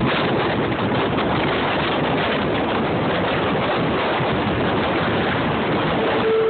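Strong wind buffeting the microphone over the steady noise of jet airliner engines. A steady whine starts near the end.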